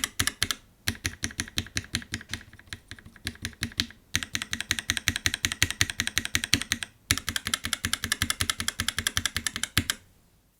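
Mechanical keyboard with lubed linear switches and 72g springs being typed on fast, a dense run of key clacks. The typing breaks off briefly about a second in, about four seconds in and about seven seconds in, and stops shortly before the end.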